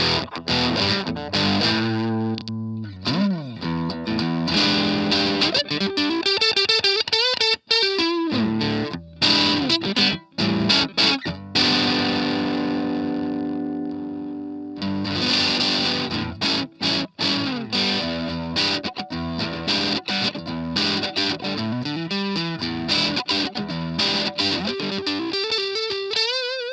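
Electric guitar, an Ibanez RG550 with DiMarzio pickups, played through an MXR Custom Badass '78 Distortion pedal. It plays fast distorted lead runs with string bends, lets a chord ring out and fade about halfway through, and ends on a bent note held with vibrato.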